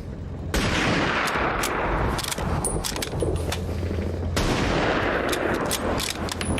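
War-film battle soundtrack: a dense, continuous roar of machine-gun and rifle fire, with sharp single shots cracking out irregularly over it. It gets louder about half a second in.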